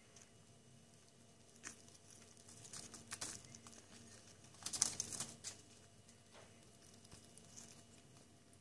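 Two pet rats eating corn kernels from a ceramic bowl: soft, irregular nibbling, crunching and small clicks as they chew and rummage in the bowl, busiest about halfway through.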